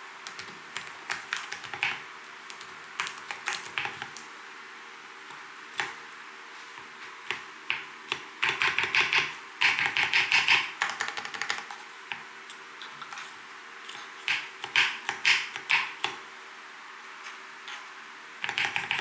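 Typing on an Mstone Groove T87A keyboard fitted with silent milky switches (45 g): irregular runs of soft keystrokes with short pauses. The fastest, densest runs come about halfway through and again about three-quarters through.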